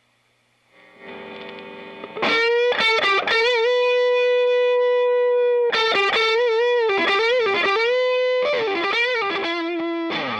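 Electric guitar played through an MXR Sugar Drive overdrive pedal, a Klon clone: a softer chord about a second in, then a loud lead line of long sustained single notes with string bends and vibrato, dropping to a lower held note near the end.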